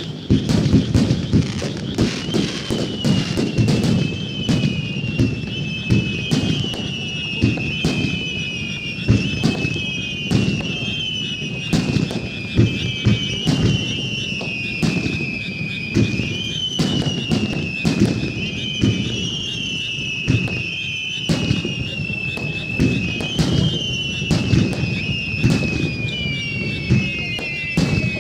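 Fireworks starmine: a dense, continuous barrage of aerial shell launches and bursts, many sharp booms and crackles a second. Over it, high tones slide down in pitch again and again, each jumping back up after a second or two.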